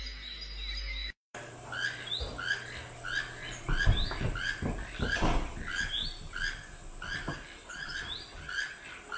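Short squeaky chirps repeating steadily about twice a second, starting about a second in, with a few splashes of water near the middle.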